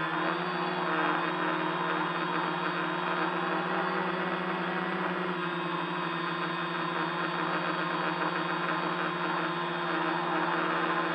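Electric motors and propellers of a tricopter, heard close up from its onboard camera, whirring steadily in flight, with the pitch dipping slightly about five seconds in as the throttle changes.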